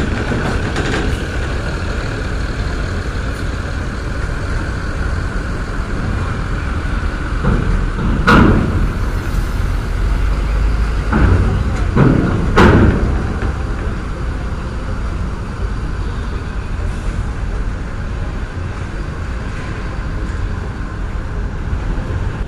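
Tour coach's diesel engine running low and steady as the bus rolls up a ferry's steel loading ramp, with loud metallic clanks about 8 and 12 seconds in as it crosses the ramp plates.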